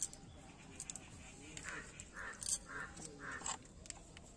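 A crow cawing faintly in the background: four short, harsh caws about half a second apart, starting about a second and a half in. A few faint clicks are also heard.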